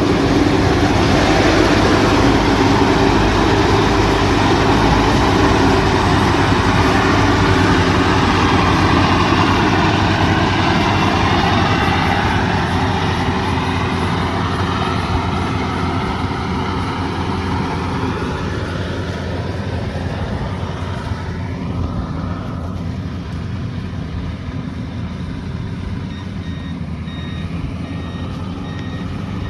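Combine harvester running steadily, a continuous mix of engine and machinery noise that slowly fades. Near the end a reversing alarm sounds a string of short high beeps.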